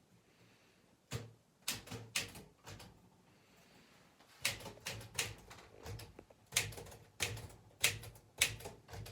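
Restored Smith-Corona typewriter being test-typed: sharp keystroke clacks, a short run between about one and three seconds in, then steadier typing from about four and a half seconds.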